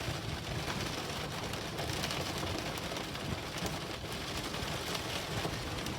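Heavy rain falling steadily on a car, an even hiss with fine patter, heard from inside the car.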